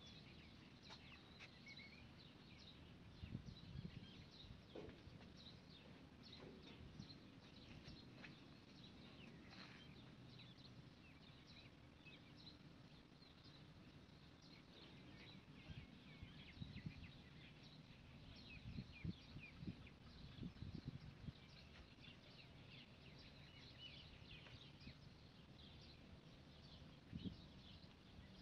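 Near silence: faint outdoor ambience with many scattered small bird chirps, and a few soft low bumps.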